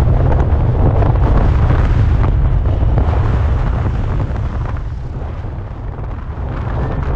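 Heavy wind buffeting on the microphone, a loud low rumble, with a dirt bike's engine passing close about four seconds in and fading as it goes.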